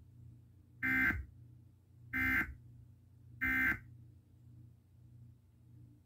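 Emergency Alert System end-of-message signal: three short bursts of digital data tones, each about a third of a second long and a little over a second apart, sent to close the test message.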